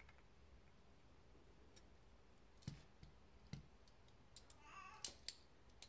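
Titanium butterfly (balisong-style) utility knife, with no blade fitted, being flipped by hand: scattered light clicks of the handles and pivot, one or two at a time, the loudest pair about five seconds in.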